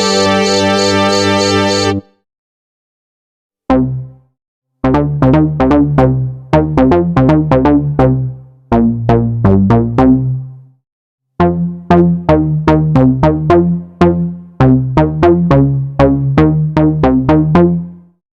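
Arturia AstroLab keyboard playing its Jupiter-8 synth emulation: a held synth chord that stops about two seconds in, then after a short gap a patch of short plucked notes over a deep bass, played in quick rhythmic phrases with brief pauses.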